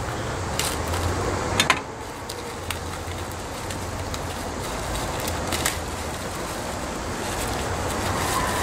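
Thin plastic produce bag crinkling as a head of lettuce is worked out of it, with a few sharp crackles, the loudest about a second and a half in, over a steady low background rumble.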